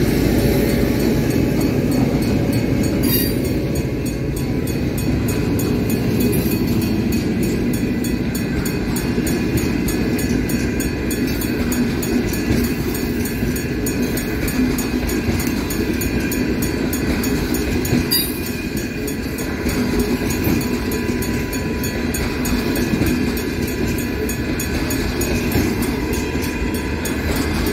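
Diesel-hauled passenger train passing at close range: the last of the locomotives, then a line of passenger coaches rolling by with a steady rumble of wheels on rails. Two sharp clicks stand out, one about 3 seconds in and one about 18 seconds in.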